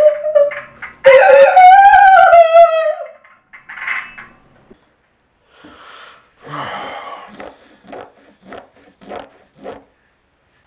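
A woman wailing in two long, loud, high-pitched cries that fall in pitch, within the first three seconds. Quieter short bursts follow in the second half, about three a second.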